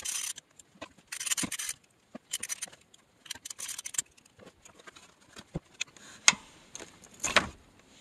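Ratchet wrench clicking in short bursts as the shifter plate's bolts are backed out, followed by a few single sharp metal clicks, two louder ones near the end, as the loosened bolts and plate are handled.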